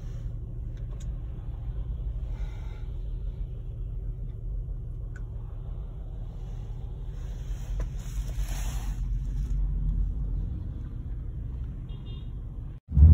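Steady low road rumble of a moving car heard from inside the cabin, with a louder hiss swelling up and fading about seven to nine seconds in.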